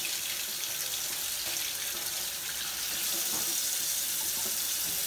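Kitchen tap running in a steady stream into a stainless steel sink, the water splashing over hands and eggs being rinsed under it.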